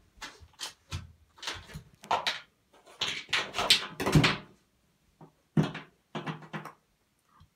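Bouvier des Flandres puppy playing in an empty bathtub: a quick string of short scrapes, knocks and scuffles as it paws and noses at plastic shower bottles against the tub. The sounds come thick for the first few seconds, then thin out.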